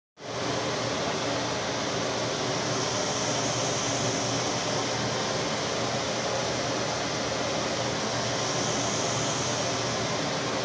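Steady, even rushing air noise, like a ventilation fan running, with no changes.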